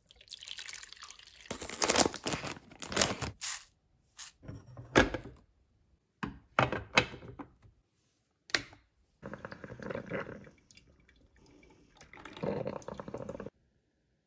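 Water poured into the plastic reservoir of a Toshiba HCD-5MJ drip coffee maker, followed by several sharp plastic clicks and knocks as the machine is set up and switched on. Near the end comes the hiss and gurgle of the machine brewing, which stops abruptly.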